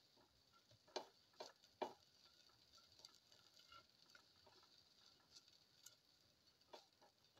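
A spatula knocking and scraping against a stainless steel pot while stirring sautéing shallots: three sharp knocks about a second in and another near the end, with soft stirring in between.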